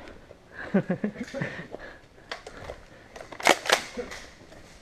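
Scattered sharp clicks and two louder cracks in quick succession about three and a half seconds in, typical of airsoft guns firing, with a faint shout about a second in.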